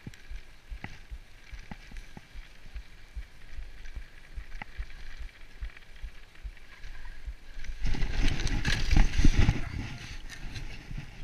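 Bicycle rolling over packed snow with small knocks and rattles, then about eight seconds in a loud clattering crash lasting about two seconds as the bike skids out and falls on the icy path.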